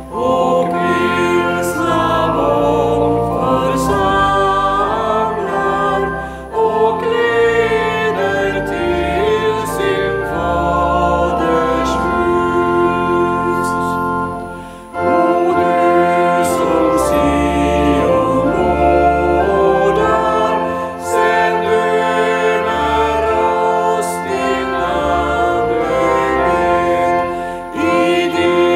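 Voices singing together with organ accompaniment, in several sung phrases with short breaks between them.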